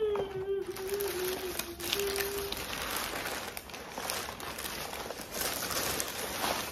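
Tissue paper crinkling and rustling as a new sneaker is unwrapped from it and pulled out of the shoe box. A steady held hum runs under it for the first two and a half seconds.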